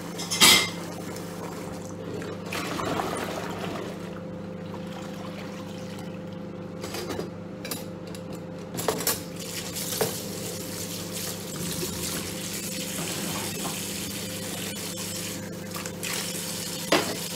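Water from a kitchen tap running and splashing in the sink during washing up, with a few sharp clatters of crockery: one about half a second in, a couple in the middle and one near the end. Under it a steady hum from the microwave, which is cooking bacon.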